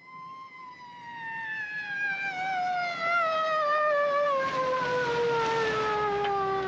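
Police car siren sounding one long, slowly falling tone that winds down steadily in pitch, growing louder over the first few seconds.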